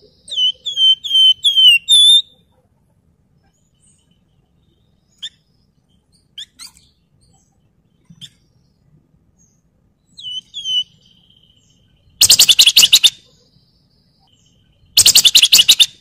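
A Javan fulvetta (wergan Jawa) singing. It opens with a run of about five quick, clear, down-slurred whistles, then gives a few faint notes and a held whistle. Near the end come two loud, rapid rattling trills of about a second each, the 'ngebren' trill.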